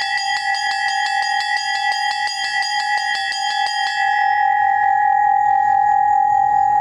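Rapid trill of semiquavers, about seven or eight strokes a second, struck alternately on the second and third small bells of a Russian-style bell set. About four seconds in the separate strokes fade and one bell's tone rings on.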